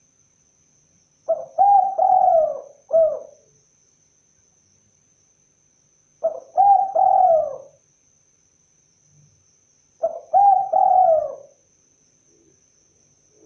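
Spotted dove (tekukur) cooing: three song phrases of a few quick coos each, repeated about every four seconds with quiet pauses between.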